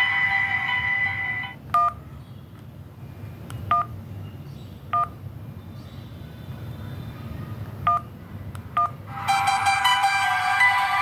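A mobile phone ringtone melody that stops about one and a half seconds in, followed by five short dual-tone keypad beeps, all the same pitch, at uneven spacing as the phone's keys are pressed. Near the end another ringtone melody starts.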